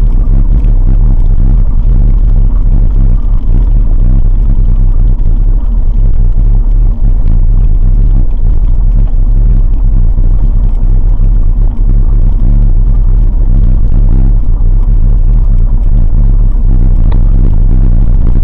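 A loud, steady low engine drone running at a constant speed.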